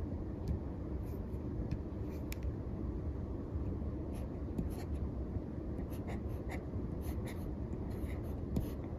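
Stylus nib scratching and tapping on the textured screen of a reMarkable 2 tablet during handwriting, with irregular short ticks as the pen touches down and lifts, over a steady low rumble.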